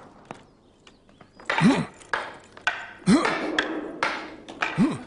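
Wooden practice swords clacking together in sparring, several sharp knocks, with short shouts of effort from the fighters.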